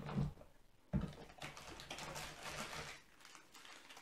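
A soft knock about a second in, then foil-laminate ration sachets crinkling for about two seconds as a hand lifts a bundle of them out of a cardboard box.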